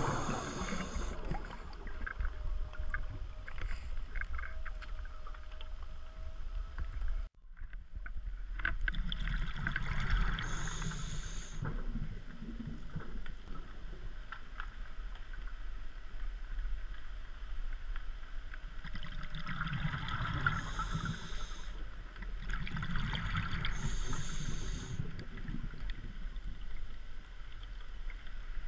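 Underwater sound of a scuba diver breathing through a regulator: several breaths, each a short hissing inhale followed by a longer low bubbling of exhaled air, over a steady low rumble of water against the camera housing. The sound drops out for an instant at a cut about seven seconds in.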